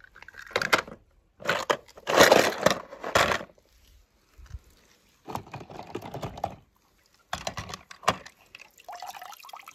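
Hand-handling noise of toy cars among rocks: a run of irregular scrapes, rustles and sharp clicks, with short pauses between them.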